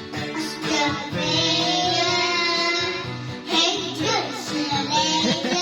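A young child singing a children's song over its backing music.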